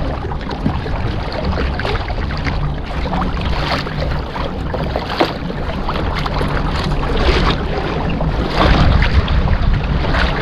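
Wind buffeting the microphone, with water sloshing and splashing against a kayak hull in irregular small splashes.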